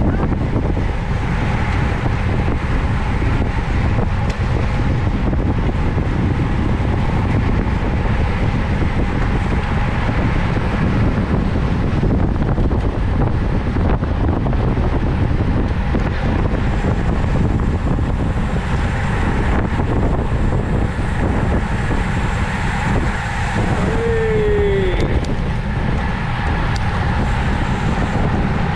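Steady rush of wind noise on the microphone of a bicycle rider's camera at race speed, heaviest in the low end. About twenty-four seconds in, a short falling squeal sounds once.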